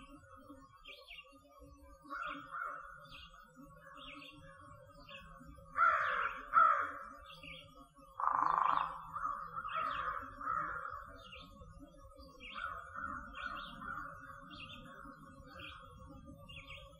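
Crows cawing, several harsh caws, the loudest about six and eight seconds in, over a small bird's short high chirps repeating steadily.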